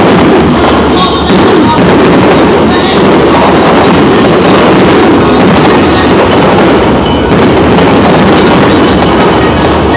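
Loud, continuous barrage of aerial fireworks shells bursting in rapid succession, with no gaps between the bangs.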